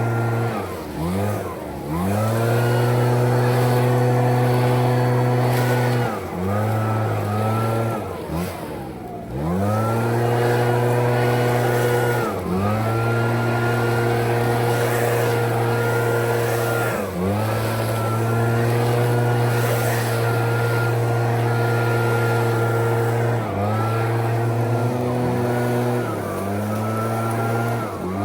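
ECHO PB-9010T backpack leaf blower's two-stroke engine running at high throttle. The throttle is let off and opened again several times, so the revs drop briefly and climb back before holding steady.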